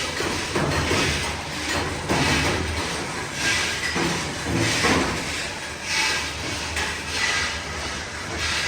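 Nut-making factory machinery running, with a hissing clatter that surges in repeated strokes about once a second.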